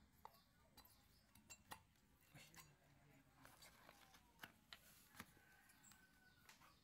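Near silence with a few faint, scattered clicks and taps as an aluminium motorcycle cylinder block and piston are handled.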